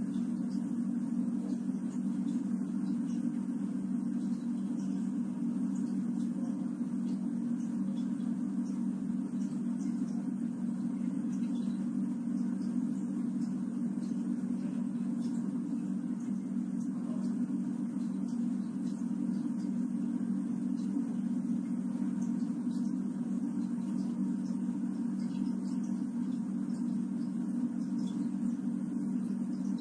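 A steady low hum, even and unbroken, with no rhythm of breathing or snoring standing out.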